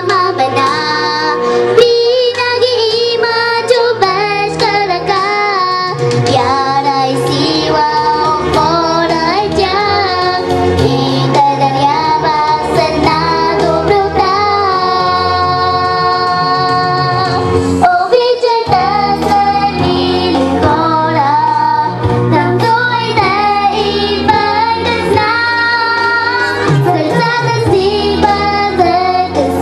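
A young girl singing a slow song into a microphone, amplified, over instrumental accompaniment; the sung melody rises and falls through long held notes.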